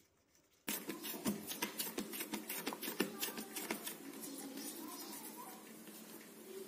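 Fingers patting and pressing soft dough flat on a greased steel plate: quick, uneven soft taps for the first few seconds, then quieter rubbing and pressing.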